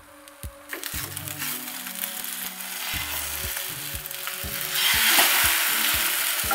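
Egg and mushroom omelette sizzling in a frying pan, with a wooden spatula scraping as it is worked under the omelette and flipped. The sizzle swells louder about five seconds in, as the omelette turns over.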